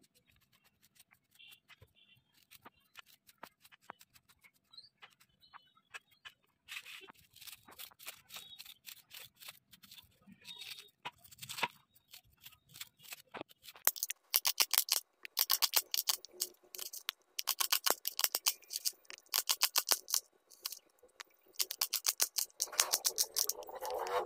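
Serrated kitchen knife cutting through ginger and red onion held in the hand, a run of rapid scraping strokes. The strokes are sparse and faint at first, then come in loud, dense runs from about the middle on.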